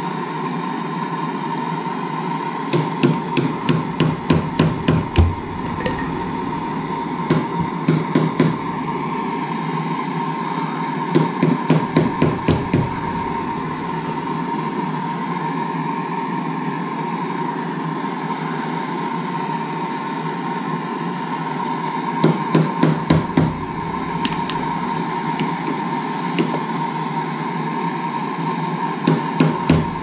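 Gas torch hissing steadily as it heats a copper water pipe, broken by five short runs of quick, sharp metal taps.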